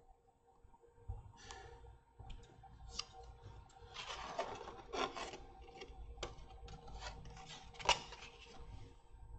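Hobby knife trimming small kit parts free of their sprue on a plastic cutting mat: faint scraping and rubbing with scattered light clicks, a busier stretch of scraping about halfway through and a sharper click about eight seconds in.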